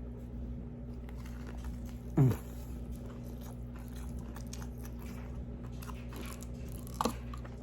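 A person biting into and chewing crispy fried Carolina Reaper hot chicken close to the microphone, with repeated crunches of the breading. A brief falling vocal sound comes about two seconds in.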